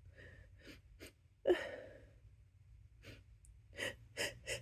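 A person's sharp, gasping in-breaths between sneezes, the catching breaths of an oncoming sneeze. There is one louder gasp about one and a half seconds in, then a run of four quick, short gasps near the end.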